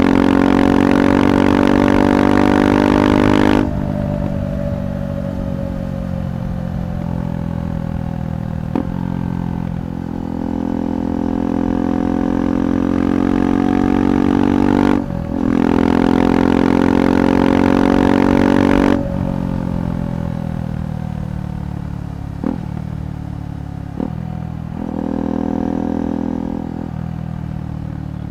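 KTM 390 Adventure's single-cylinder engine through a Red Rooster aftermarket exhaust, pulling hard with rising pitch at the start and again about fifteen seconds in. Each pull cuts back suddenly as the throttle closes. Between the pulls it runs softer with falling, then slowly climbing revs, and a few brief sharp cracks come through.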